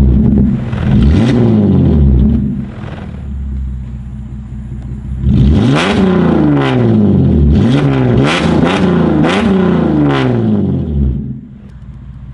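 Holden Commodore SV6's 3.6-litre V6 being revved, loud through an exhaust with the catalytic converters deleted and the rear mufflers removed, only a resonator left. It blips twice, idles briefly, then revs about six times in quick succession before dropping back to idle near the end.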